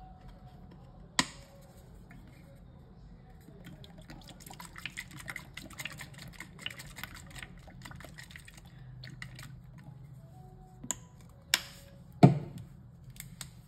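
Rose water poured from a plastic bottle into a small plastic bowl, dripping and spattering in little spurts. A few sharp knocks break in, the loudest about twelve seconds in.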